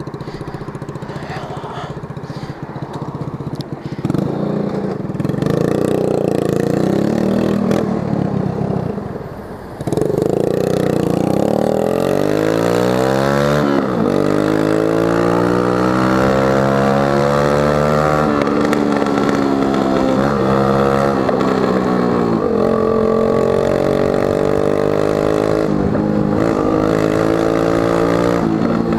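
Yamaha Zig 100 scooter engine running on a bare exhaust pipe, its muffler tip broken off. It runs steadily at first, gets louder about four seconds in, dips briefly, then climbs in pitch again and again as it accelerates away, and runs on at speed with the pitch rising and falling with the throttle.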